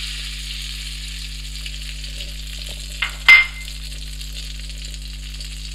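Melted butter sizzling steadily in a hot karahi (wok). About three seconds in, a single sharp clink of glass rings briefly, the glass bowl being set down.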